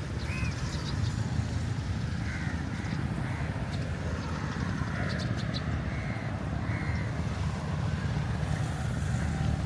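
A crow cawing repeatedly, a string of short calls about one a second, over a steady low rumble.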